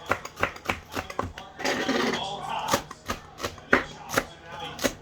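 Kitchen knife chopping spring onions on a cutting board: a run of uneven knocks, about three or four a second, with one sharper knock near the four-second mark. A short rustling burst comes around two seconds in.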